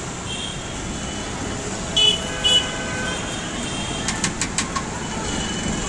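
Steady street traffic noise with two short vehicle horn toots about two seconds in, then a quick run of light clicks a little after four seconds.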